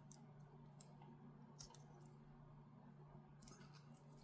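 Faint small clicks of an FPV drone motor's plastic plug being pushed into its connector. A few single clicks come first and a quick cluster follows near the end, over a low steady hum.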